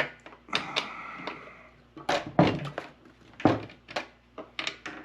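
Sharp knocks and metallic clinks from hand tools and chainsaw parts being handled and set down, a string of about ten, with a brief metallic ring early in the string.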